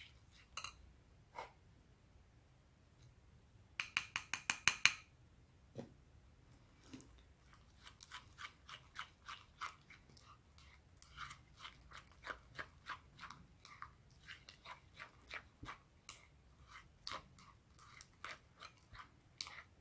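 Sticky glue slime being worked by fingers in a ceramic bowl, making small wet clicks and smacks as it starts to come together. A quick run of sharper clicks comes about four seconds in, then irregular clicks several a second follow.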